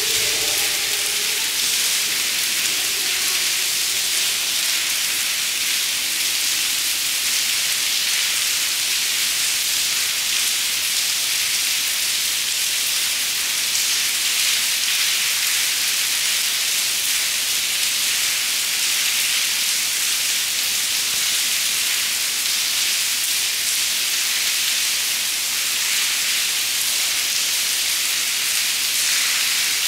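Steady rain falling into an open stone courtyard, heard from under the surrounding arcade as an even, unbroken hiss.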